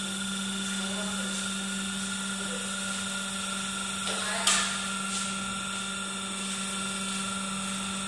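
Electric motor and pump of a hydraulic power pack running with a steady hum and whine as they drive the hydraulic cylinders that tilt a crucible melting furnace. A short knock about four and a half seconds in.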